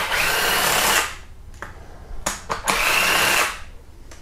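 Handheld cordless power tool spinning out the pre-loosened cylinder head bolts of a Hyundai/Kia 2.4 GDI engine. It makes two runs of about a second each with a steady high whine, and small clicks between them as the tool is moved to the next bolt.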